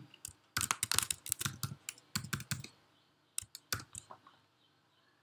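Typing on a computer keyboard: a quick run of key clicks over the first couple of seconds, a few more keystrokes a little later, then it stops.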